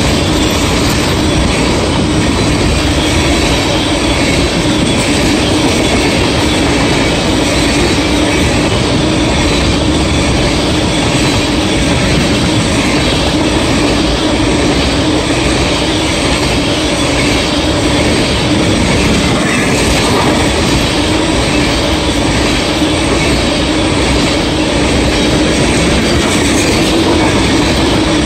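Freight train of tank cars rolling past: a loud, steady noise of steel wheels running on the rails.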